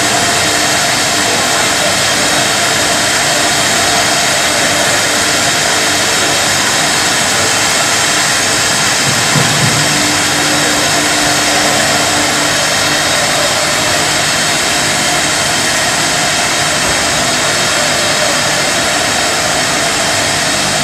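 Jam bottling line machinery running: a steady, loud rushing drone from the conveyors and equipment, with a brief low rumble about nine seconds in.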